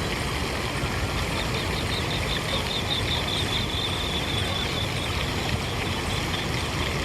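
Steady rush of flowing water. A quick run of high chirps rides over it for a few seconds near the middle.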